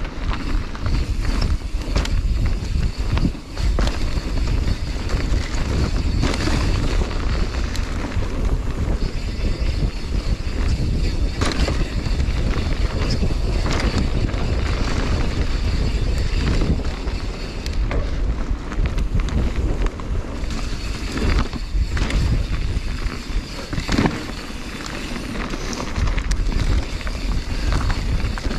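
Mountain bike riding fast down a dirt forest trail: wind buffeting the microphone, tyres rolling over dirt and dry leaves, and frequent knocks and rattles from the bike over bumps.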